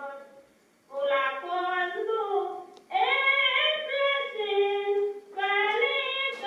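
Recording of a woman singing a Rumeic (Azov Greek) song solo and unaccompanied, played back through small loudspeakers. Sung phrases of held, wavering notes, with a pause about half a second in and a brief break near three seconds.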